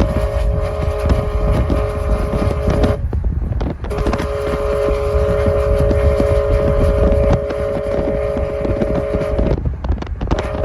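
Locomotive air horn sounding long blasts, a steady chord of several notes: one of about three seconds, a short break, then a longer one of about five and a half seconds, over a heavy low rumble and wind on the microphone.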